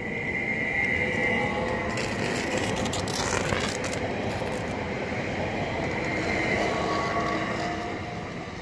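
Stadler FLIRT (VR Sm5) electric commuter train passing close by and pulling away. Its traction motors whine with shifting tones, and a run of sharp clicks from the wheels on the track comes about two to four seconds in. The sound fades as the train recedes near the end.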